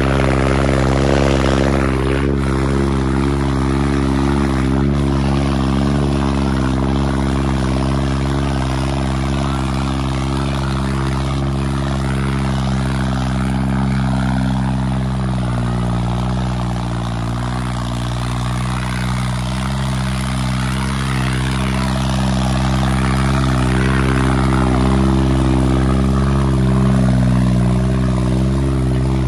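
Tractor engine running flat out under a heavy pulling load, a loud, steady, deep drone. The note sags about halfway through, then picks back up.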